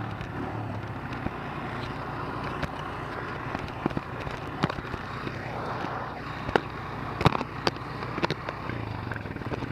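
ATV engine running steadily, with scattered sharp clicks and knocks, more frequent in the second half.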